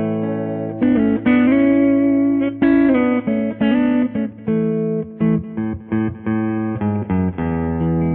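Electric guitar with a Lace Alumitone humbucker at the neck, in humbucking mode, played through an amplifier: a run of picked notes and ringing chords, changing every second or so, with a full, rich tone.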